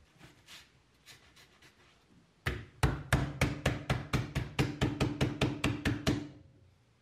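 Chinese cleaver chopping a vegetable stalk on a wooden cutting board: a few light taps, then from about two and a half seconds in a fast, even run of about five chops a second, each with a short woody knock, stopping about a second before the end.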